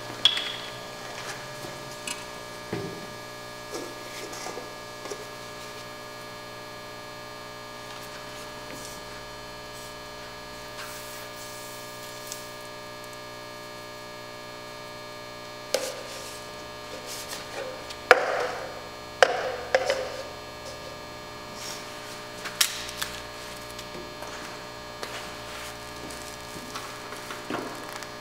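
Steady electrical hum with scattered knocks and clinks from handling the liquid nitrogen dewar, a cup and the dewar's transfer hose. A cluster of louder knocks comes about two-thirds of the way through.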